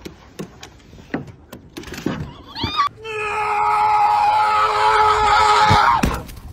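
A long, steady, shrill cry held at one pitch for about three seconds, starting about three seconds in. Before it come scattered short clicks and a few brief squeaks.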